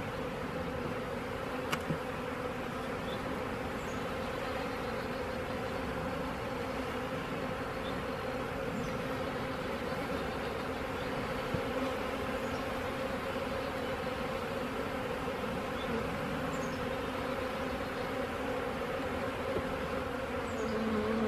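Honeybees of a nuc colony buzzing in a steady massed hum, with a faint click or two.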